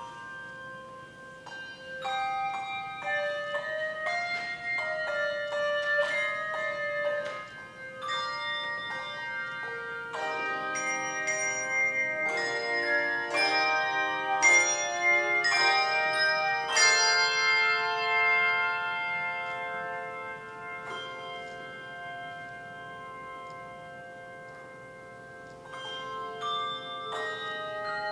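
Handbell choir playing a piece of music: struck handbells with long ringing tones, the chords coming thick and loud through the middle, then left ringing and dying away before fresh strikes near the end.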